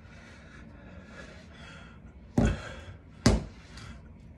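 Two heavy thuds a little under a second apart, past the middle, as a pair of dumbbells is set down on a carpeted floor, with heavy breathing from exertion between.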